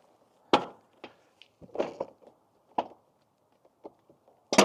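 A handful of irregular sharp clicks and knocks as a cover is worked off the mini excavator's fuel filler, the loudest about half a second in and just before the end.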